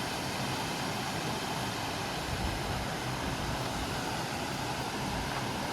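Steady rush of falling water from a waterfall, an even, unbroken noise that starts abruptly at a cut.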